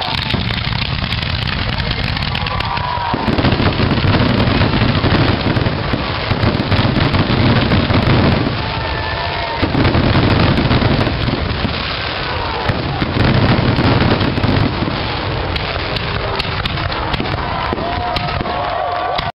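Fireworks display at full barrage: aerial shells bursting in rapid succession with continuous crackling, swelling in several louder waves of deep booms.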